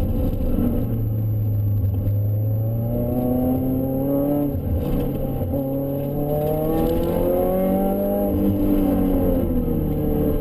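Supercharged Mazda MX-5's four-cylinder engine heard inside the cabin under hard acceleration, the revs climbing, dropping suddenly at an upshift about halfway through, climbing again, then falling off near the end as the driver lifts.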